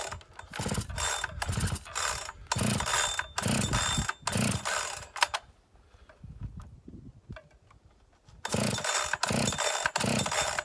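Recoil pull-starter of a new Husqvarna 365 X-Torque 71 cc chainsaw being yanked again and again, the rope whirring out and rattling back without the engine catching: the saw's first start on factory carburettor settings. A quick run of about eight pulls, a pause of about three seconds, then four more quick pulls near the end.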